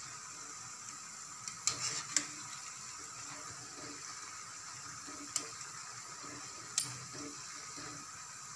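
Batter-coated pumpkin-flower fritters sizzling in hot oil in an aluminium kadai, a steady frying hiss, with a few light clicks as a wire skimmer touches the pan while the fritters are turned. They are frying until they turn reddish-golden.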